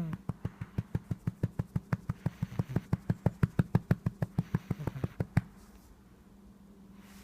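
A rapid, even run of sharp clicks, about six a second, growing louder and then stopping abruptly about five seconds in.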